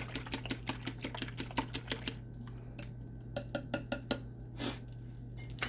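Eggs being beaten in a bowl, the utensil clinking rapidly against the bowl about six strokes a second. The beating stops about two seconds in, followed by a few scattered clinks and knocks.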